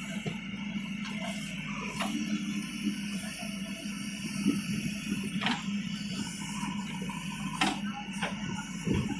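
JCB 3DX backhoe loader's diesel engine running steadily as the backhoe works, with a few sharp metallic knocks from the bucket and arm, the loudest about two thirds of the way in.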